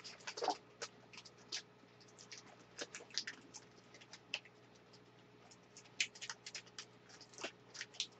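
Snack packaging being opened and handled by hand: faint, irregular crinkles and clicks of wrapper and box, a dozen or so small crackles scattered through.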